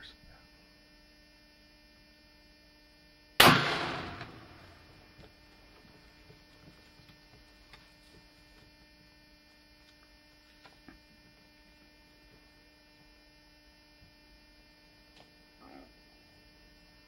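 A single rifle shot about three and a half seconds in, loud and sharp, with an echo tailing off over about a second. A steady electrical hum runs underneath throughout.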